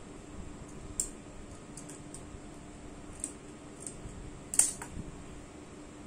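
A few scattered sharp clicks and light rustles of cloth and sewing tools being handled, the loudest about four and a half seconds in, over a faint steady hum.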